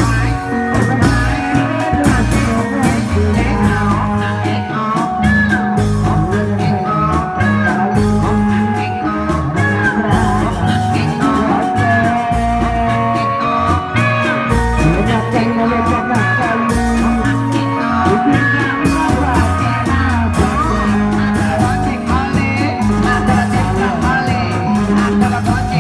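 Bendrong dangdut music from a Reog Indramayu troupe: steady drumming under a wavering melody that runs on without a break.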